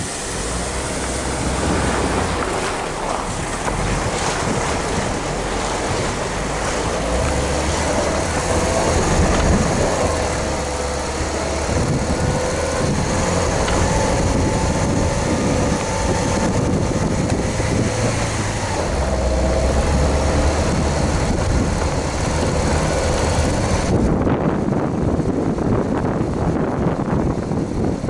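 Duster SUV driving a rough dirt mountain track: the engine runs steadily with its pitch wavering as the speed changes, under a loud rushing of wind noise on the bonnet-mounted camera's microphone. The hiss thins out a few seconds before the end.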